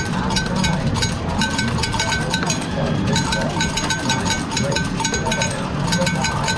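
Arcade din: electronic bell-like beeps repeating about twice a second over a steady clatter of 2p coins clinking.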